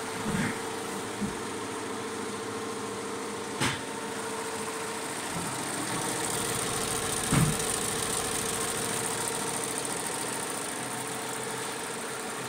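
FUWEI two-head commercial embroidery machine stitching, a steady rapid mechanical running over a constant hum. Two brief knocks stand out, one a few seconds in and another about halfway.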